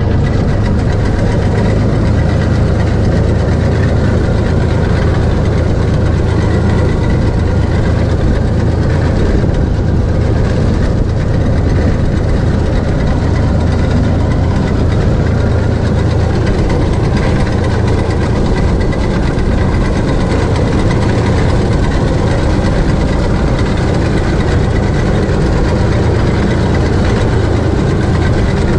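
Tractor engine running steadily while working a trailed winged reaper through standing grain, the sickle bar cutting and the rotating sweep arms turning, with a steady low engine drone that never lets up.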